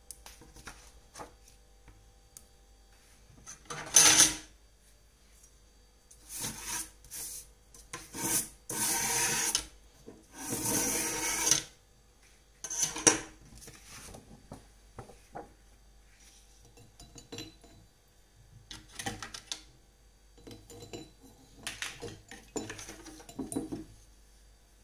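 Intermittent rubbing and scraping, in bursts of about one to two seconds with quiet pauses between. The sharpest scrape comes about four seconds in, and the longest run of them falls near the middle.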